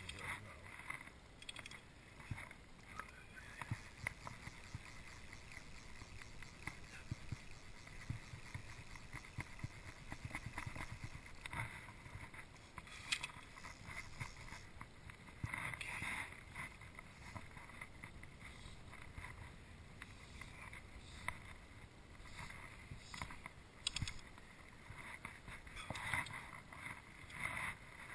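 Small waves lapping against a small fishing boat, with scattered sharp clicks and knocks and a few brief louder rustling bursts.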